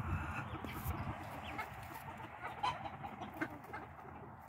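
Silkie chickens clucking, a few short, scattered calls.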